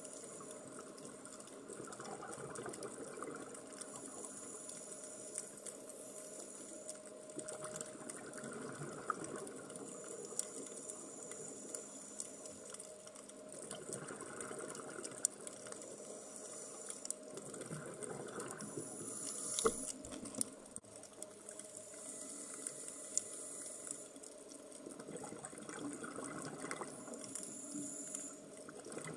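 Underwater sound picked up through a camera's underwater housing: a scuba diver's exhaled bubbles gurgling in swells every few seconds, with many scattered sharp clicks and crackles.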